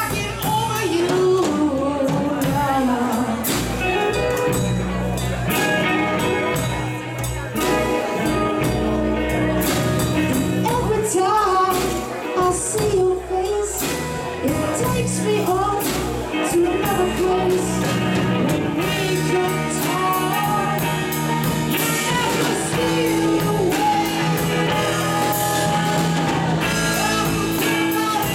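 Live rock band playing: two electric guitars and a Ludwig drum kit with cymbals, with a singer.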